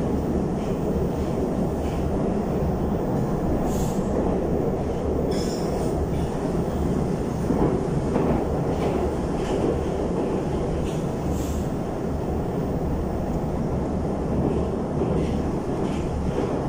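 Moscow metro 81-775/776/777 train running through the tunnel, heard inside the car at the gangway door: a steady low rumble with brief high squeals now and then.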